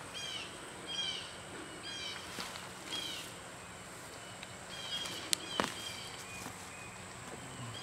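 A bird calling over and over with short, high chirps about once a second, and two sharp clicks about five and a half seconds in.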